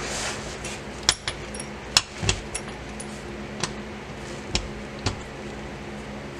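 Scattered sharp metallic clicks and clinks as bolts and hand tools are handled during a driveshaft carrier install, about eight of them at irregular spacing, over a steady low background hum.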